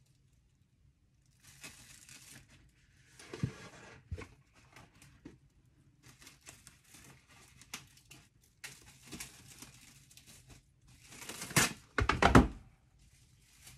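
Plastic cling wrap crinkling as it is pulled out of its box and torn off on the cutter edge, in irregular rustles, loudest near the end.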